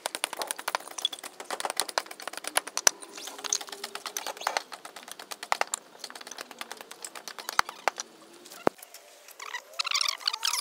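Hatchet chopping and trimming wooden pieces into stakes: a quick, irregular run of sharp knocks. About nine seconds in, the chopping stops and short high squeaky sounds follow.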